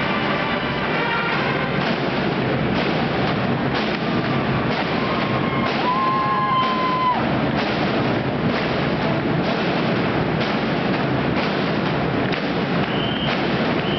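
Large marching brass band playing live, with brass and a drum line, heavy drum hits falling about once a second. A single high note is held for about two seconds around the middle.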